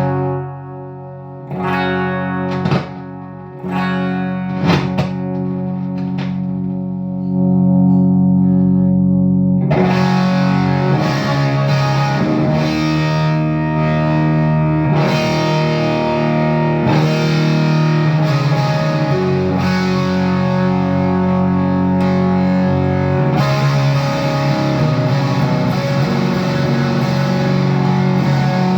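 Electric guitar played through an unmodified Bell & Howell Filmosound DES202 projector amplifier, with a distorted tone. A few separate strums ring out at first, then from about seven seconds in the chords are held and sustained.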